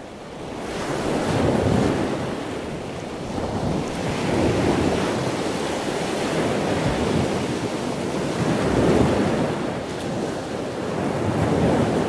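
Ocean surf: a steady rush of breaking waves that swells and ebbs every three to four seconds, building up over the first second or so.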